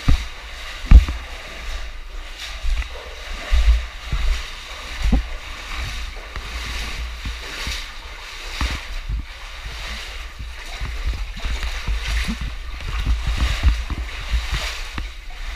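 Water splashing and sloshing as a caver swims through a flooded cave passage, with irregular low thumps, the loudest about a second in.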